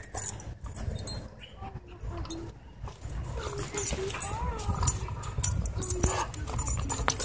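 A dog at play whines in wavering, rising-and-falling cries from about three seconds in. Under it runs a low rumble from the moving handheld camera, with scattered light knocks.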